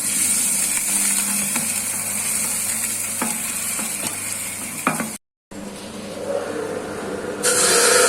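Abon cooking machine running: the motor-driven stirrer churns shredded meat in the heated pan with a steady hum and sizzling hiss, and a few scraping clicks. The sound cuts out briefly about five seconds in, and the hiss gets louder near the end.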